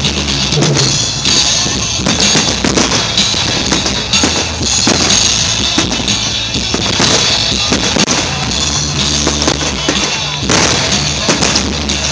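Fireworks going off in a rapid run of bangs and crackles, over loud music with a steady bass.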